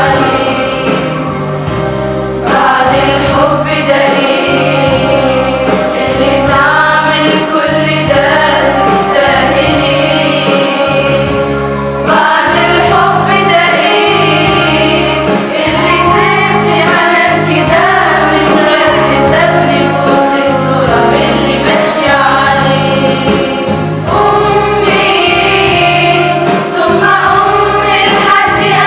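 A group of girls singing a song together as a choir of female voices, over an instrumental backing with a steady bass line.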